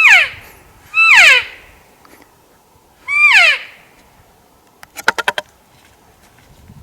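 Elk calling at close range: three loud, high-pitched calls, each sliding steeply down in pitch, in the first three and a half seconds, then a quick run of about six short pulses about five seconds in.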